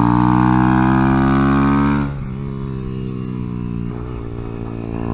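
Kawasaki Z125's 125 cc single-cylinder engine running at steady high revs, loud at first, then dropping in level as the throttle eases off about two seconds in, and picking up again near the end.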